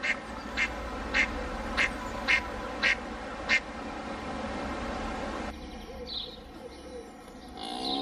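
A duck quacking: a run of seven short quacks, a little under two a second, that stop about halfway through. Just before the end a cow's low moo begins.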